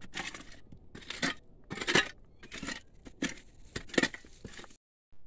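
Hand digging tool scraping and striking into stony earth in a run of about seven strokes, roughly one every two-thirds of a second.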